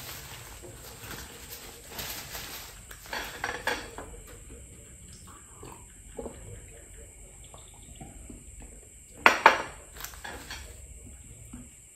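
Table sounds at a meal: a paper napkin rustling, light clinks of a drinking glass and plates, and one louder brief clatter about nine seconds in.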